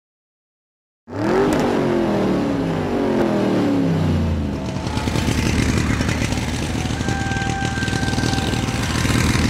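Racing engine sound, starting suddenly about a second in with a note that falls in pitch for a few seconds, then settling into a steady, rapid buzzing run.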